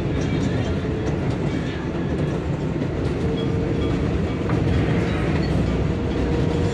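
New York City 7 subway train heard from inside the car while running: a steady rumble of wheels on rails with some clacking. A steady tone joins about halfway.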